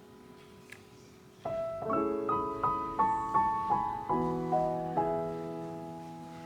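Background piano music: after a quiet held chord, a short phrase of single notes begins about a second and a half in, then settles on a sustained chord that slowly fades.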